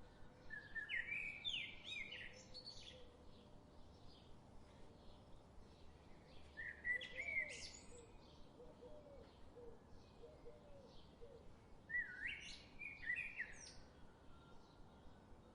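A songbird singing three short phrases of quick rising and falling notes, several seconds apart, over faint chirping that repeats a few times a second.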